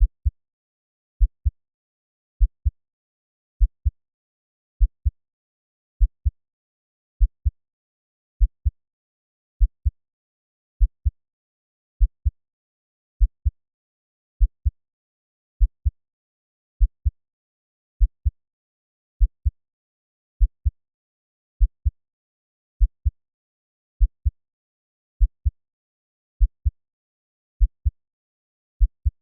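Slow, steady heartbeat sound at 50 beats per minute: each beat is a pair of short, deep thumps (lub-dub), repeating about every 1.2 seconds with silence in between.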